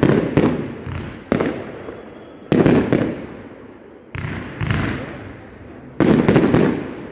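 Fireworks exploding: a string of sharp bangs, some in quick groups, each trailing off in a rumbling echo, with a rapid volley of bangs about six seconds in.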